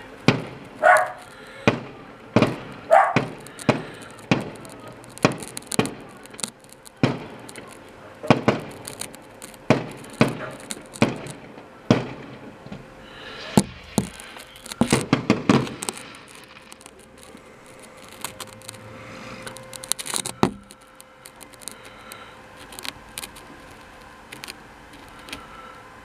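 Fireworks going off: a rapid run of sharp bangs and cracks, a quick crackling burst about fifteen seconds in, one last loud bang around twenty seconds, then only faint scattered pops. A dog barks twice in the first few seconds.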